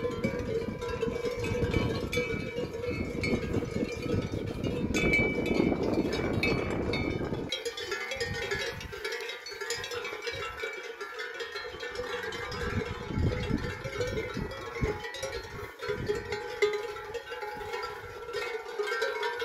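Many cowbells on grazing Salers cattle clanking and ringing at once in an irregular jangle. A low rumble underneath cuts off abruptly about seven seconds in.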